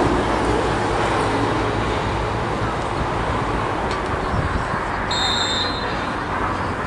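Steady rumble of a passing vehicle that slowly fades, with a short high whistle blast just after five seconds in.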